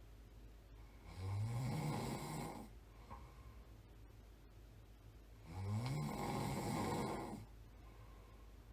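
A person snoring: two long snores about four seconds apart, each lasting around a second and a half, with a pitch that rises at the start of each.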